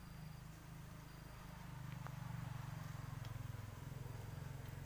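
A steady low hum that grows louder about two seconds in, with a few faint ticks over it.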